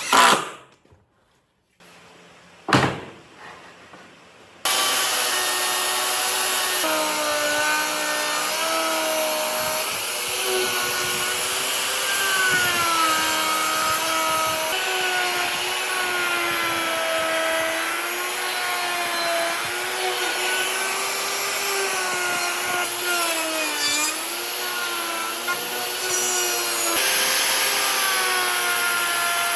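Two sharp knocks, then a power tool starts working on wood and runs steadily, its pitch dipping and rising as it takes load.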